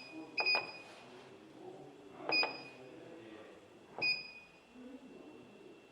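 Control panel of a LockedAir LA-E3S air-cushion packaging machine beeping three times, about two seconds apart, each short beep with a click as a button is pressed while its operating time is being set.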